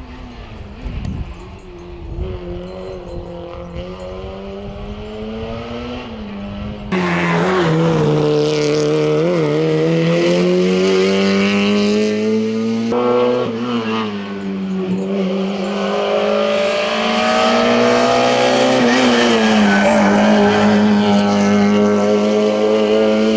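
Rally car engine revving hard on a stage, pitch climbing and dropping with throttle and gear changes. It starts fainter with wind rumbling on the microphone, then jumps abruptly much louder and closer about seven seconds in.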